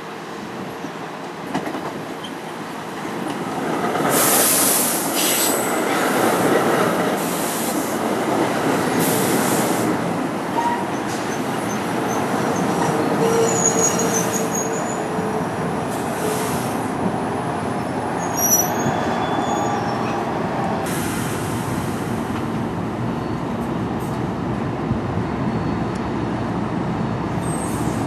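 NJ Transit Multilevel commuter train rolling past close by as it pulls into the station, its wheels clattering over the rail joints, growing louder about four seconds in as it draws level. A few brief wheel or brake squeals come through in the middle.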